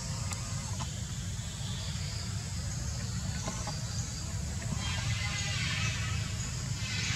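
Outdoor background noise: a steady low rumble with a high hiss, and faint high chirping that grows a little stronger in the second half.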